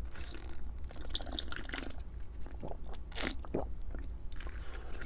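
Close-miked gulping and swallowing as root beer is drunk from a glass, a series of short separate swallows.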